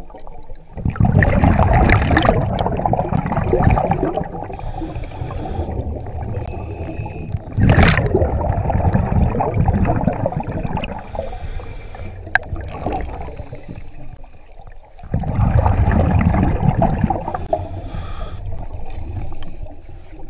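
Underwater rumble of a diver's breathing: three long bursts of bubbling, each some seconds apart, with a faint hiss in the quieter stretches between them.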